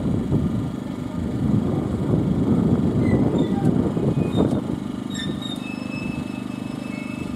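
Wind buffeting the microphone in irregular gusts, easing about four and a half seconds in to leave a steady low mechanical hum. A few short, high bird chirps come through.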